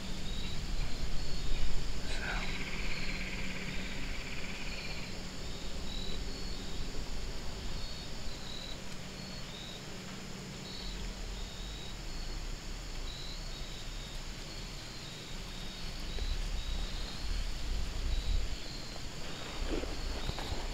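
Crickets chirping over and over in short high chirps, with a buzzing insect trill for a few seconds near the start and a low rumble now and then.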